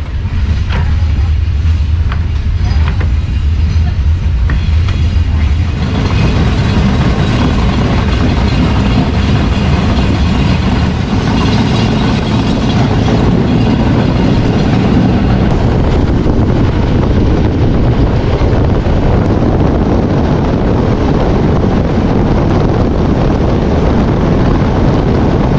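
Passenger train running on the line, heard from an open carriage window: a continuous rumble of the carriage on the rails with rushing air. A low hum stands out for the first few seconds, then about six seconds in the sound broadens into louder, even wind and rail noise.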